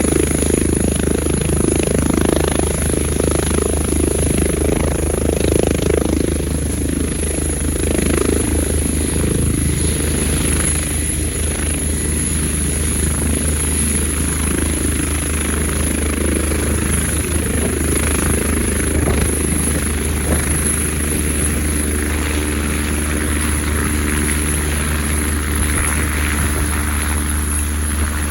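Eurocopter EC145 twin-turbine helicopter running: a steady high turbine whine over a constant low drone from the rotors.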